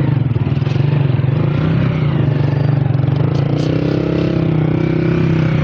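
Vehicle engine running steadily on the move, with fast even pulsing. A second, wavering pitched sound comes in past the middle and holds for about two seconds.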